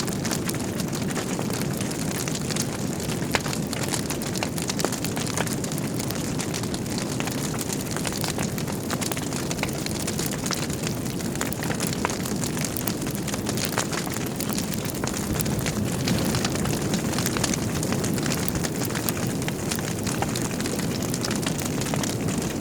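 Wood fire burning in a fireplace: a steady low rush of flames with frequent irregular crackles and pops from the burning logs.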